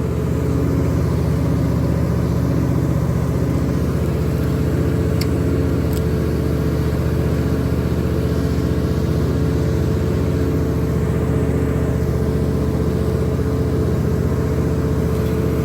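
Fishing boat's engine running steadily, a low drone with a held tone and a slow, regular pulsing.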